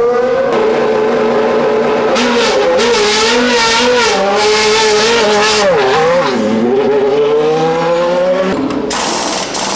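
Formula 1 racing car engine at high revs, its pitch wavering, dipping sharply about six seconds in, then climbing again. It stops about eight and a half seconds in, and a harsher, noisier sound follows.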